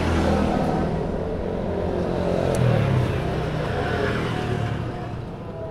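Motorcycle engine running, its revs rising about two and a half seconds in, then easing and quieter near the end.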